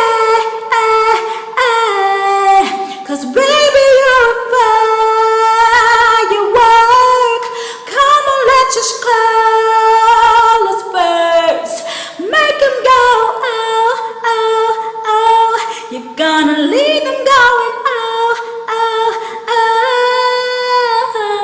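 A woman singing a cappella, with long held notes and glides: the "oh, oh, oh" chorus of a pop song.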